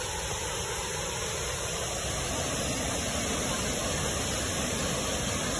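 Steady rush of water from Yumoto Falls (Yudaki), an even wash of noise that grows slightly louder.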